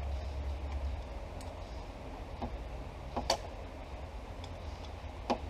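A few sharp plastic clicks as a wiring connector is worked loose behind a car's steering column. The loudest comes about three seconds in and another near the end, over a steady low hum.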